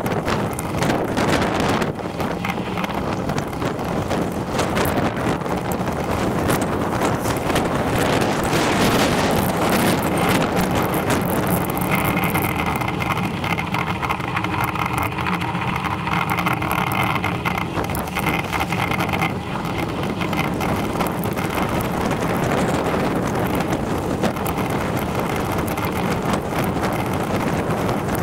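Wind rushing over the microphone of a camera riding along a lane, mixed with road noise. From about twelve seconds in, a steady hum with several tones joins for some seven seconds, then stops.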